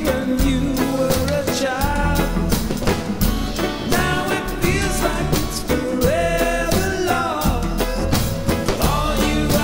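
Background music: a song with a singing voice over a drum kit keeping a steady beat.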